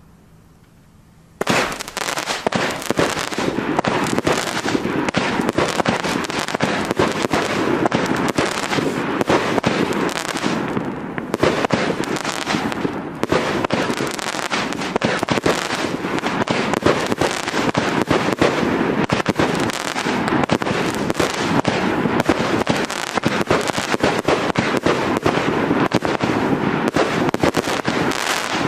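Chain-fused Thor Thrud 16-shot, 30 mm firework cakes firing: the first shots go off suddenly about a second and a half in, then the launches and bursts follow one another so densely that they run together with no gap.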